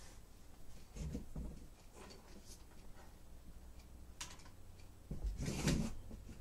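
Handling noise of a small tripod being picked up and set down on a wooden table: scattered light clicks and knocks, with the loudest clatter about five and a half seconds in.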